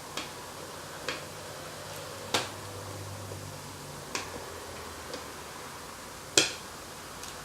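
Plastic Lego pieces clicking and knocking as they are handled, seven or eight separate sharp clicks, the loudest about six and a half seconds in.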